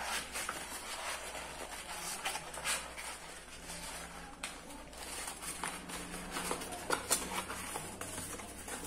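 A sheet of thin cardboard being crumpled and squeezed by hand, making irregular crackling and rustling with a few sharper crackles.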